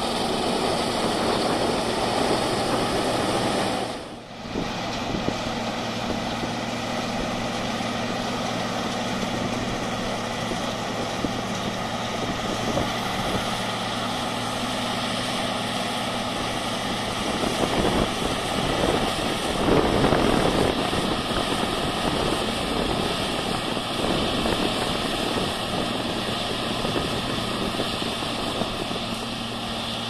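John Deere 9860 STS combine running while harvesting wheat: a steady diesel and threshing drone with a constant hum under it. It dips briefly about four seconds in and grows louder for a few seconds past the middle.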